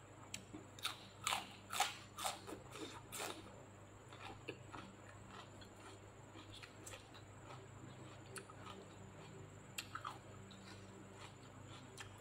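Crisp crunching bites into a raw pok choy stalk, loudest in the first few seconds, then softer chewing with scattered small clicks.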